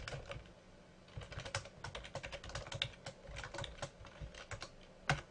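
Computer keyboard typing: quick runs of keystrokes with a short lull about half a second in, and one louder keystroke near the end.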